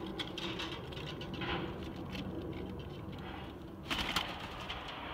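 Collared turtledove cooing low from its nest box, with scattered small clicks and rustles and a brief louder rustle about four seconds in.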